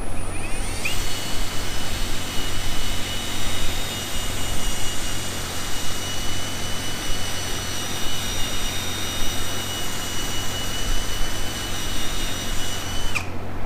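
Handheld cordless power tool running at a steady high whine for about twelve seconds, starting about a second in and cutting off just before the end, with a steady low hum underneath.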